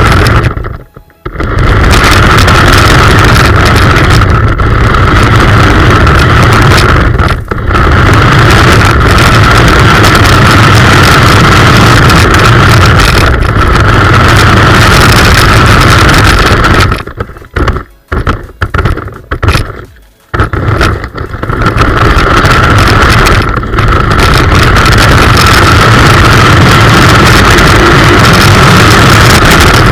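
Small electric motor and gears of a radio-controlled 1:18 Hummer H1 model car whining steadily as it drives, heard close from a camera mounted on the car, with a rough rumble underneath. It cuts out briefly a few times, and stops and starts choppily a little past halfway.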